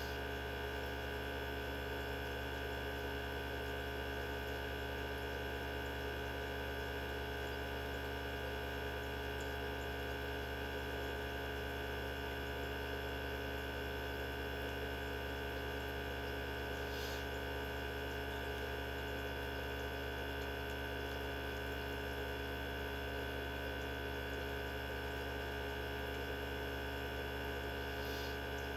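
Mini benchtop centrifuge spinning at full speed partway through its run, its motor giving a steady hum with a constant whine. Two faint ticks come in, about halfway and near the end.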